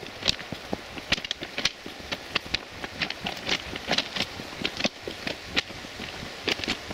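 Footsteps crunching on railway track ballast, several sharp irregular crunches a second over a steady outdoor hiss.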